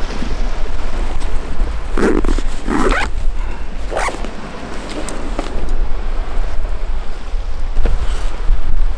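Wind buffeting the microphone, a heavy low rumble, with the padded jacket rustling against it in a few short scrapes about two, three and four seconds in.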